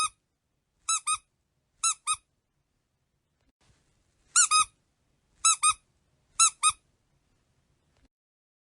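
Squeaky dog toy squeezed and released in a slow, uneven rhythm, giving about six high, double squeaks, with a pause of about two seconds midway.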